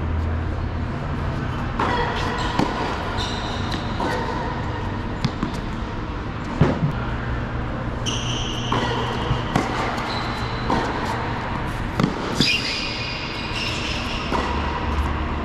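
Tennis rally on an indoor hard court: sharp knocks of the ball coming off the strings and bouncing every second or two, with brief shoe squeaks on the court and a steady low hum.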